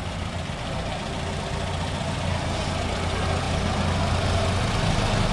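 Engines of slow-moving parade vehicles running at low revs, a steady low hum that grows gradually louder as they come closer.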